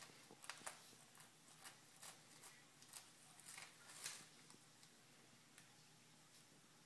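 Faint crinkling and rustling of a catnip packet as a cat rubs against it and rolls on it, in scattered soft ticks that stop about two-thirds of the way through.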